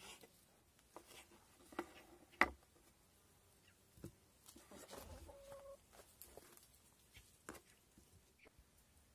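Faint food-prep handling: a kitchen knife clicking on a wooden cutting board and pieces of tail fat knocked into an aluminium pot, as a handful of sharp clicks and knocks, the loudest about two and a half seconds in. A short steady call sounds about five seconds in.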